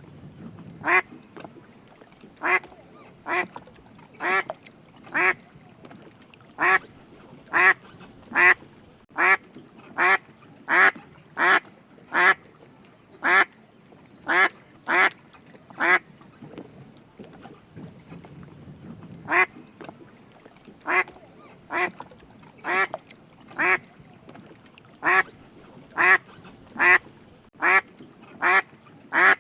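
A duck quacking over and over in single short quacks, about one a second, with a pause of about three seconds past the middle.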